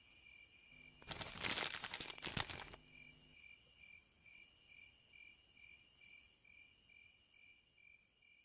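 Crickets chirping in an even pulse, about two or three chirps a second. About a second in, a louder crackling rustle lasts nearly two seconds.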